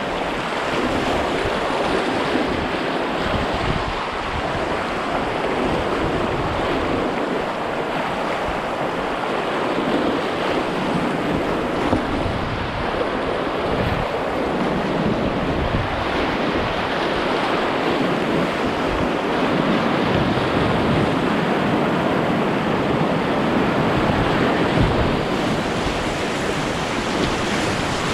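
River rapids rushing steadily around a kayak, the whitewater churning and splashing close by.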